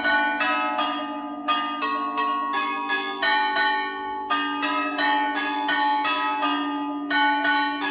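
A peal of 62 Orthodox monastery church bells rung together: quick struck strokes on the smaller bells, about three a second, over the long steady hum of a large bell.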